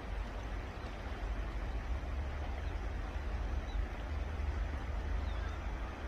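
Steady background noise: a low rumble under an even hiss, with no clear bird call.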